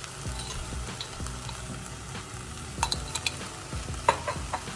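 Diced carrots, onion and red pepper sizzling in avocado oil in a small enameled Dutch oven, cooking down until glazed and translucent. Two short clusters of sharp clicks come about three seconds in and again just after four seconds.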